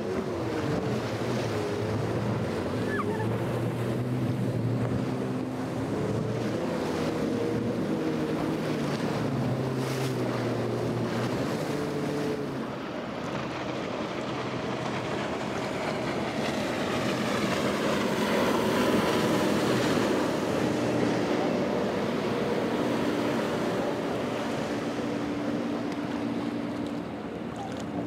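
Powerboat engines running at speed, their pitch rising and falling as the boats pass, with the hiss and slap of spray and waves off the hulls. The sound shifts about halfway through as another boat takes over, and the water noise swells soon after.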